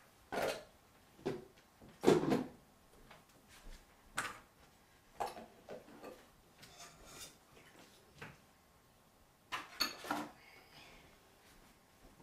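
Kitchen work sounds: irregular short knocks and clinks of cookware and utensils being handled at a counter and stove. The loudest clatter comes about two seconds in, with another cluster near the ten-second mark.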